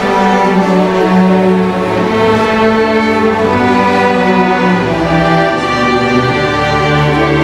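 A string orchestra of violins, cellos and basses playing a slow passage of long, held chords, the bass growing fuller about five seconds in.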